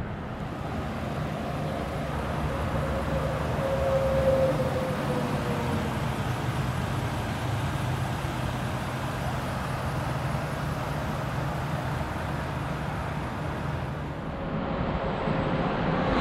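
Steady road traffic and vehicle engine noise, swelling about four seconds in with a whine that rises and falls.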